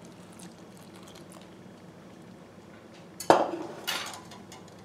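Faint kitchen room sound, then about three seconds in a sharp knock as a metal saucepan is set down on the worktop, followed by a lighter clatter.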